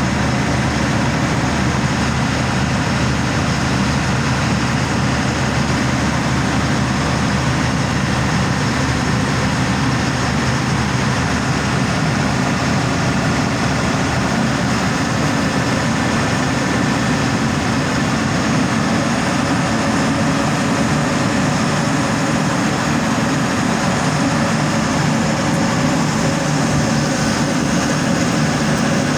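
Deutz TBD616 V12 marine diesel engine running steadily: a loud, even, unchanging engine-room drone.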